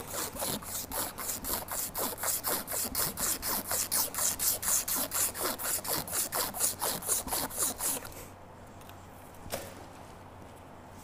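Strip of sandpaper drawn back and forth around a kettlebell's painted metal handle, rasping in quick even strokes about four a second as it sands the clear coat down to bare metal. The sanding stops about eight seconds in, and a single light click follows a moment later.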